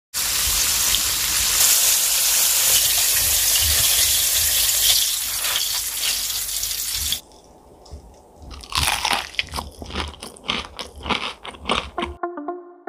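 Battered chicken drumsticks deep-frying in hot oil: a loud, dense, steady sizzle. It cuts off after about seven seconds, and from about eight and a half seconds in comes a run of sharp, irregular crunches from the crisp fried chicken coating.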